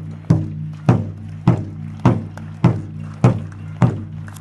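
A large drum beaten in a steady, even beat, about eight strikes spaced a little over half a second apart, each hit leaving a low ringing tone.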